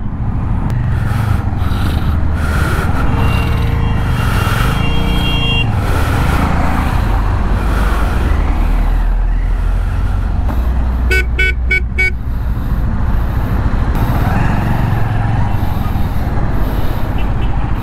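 Riding a motorcycle in city traffic: steady engine and road rumble. A vehicle horn is held for about two seconds a few seconds in, and four quick horn beeps sound around the middle.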